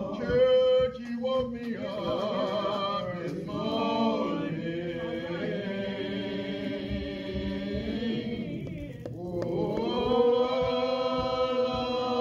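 Slow, drawn-out gospel hymn singing, the voice holding long notes and sliding between them, with a short break about nine seconds in before the next phrase.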